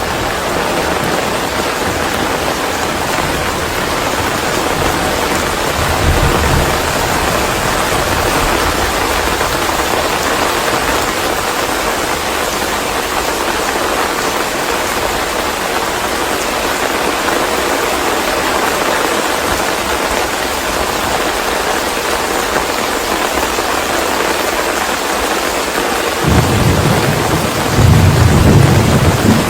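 Steady rain, with low rumbles of thunder: a brief one about six seconds in and a longer, louder one over the last few seconds.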